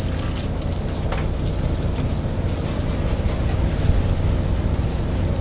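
Fishing boat's engine running steadily: a low rumble with a thin, steady high whine over it.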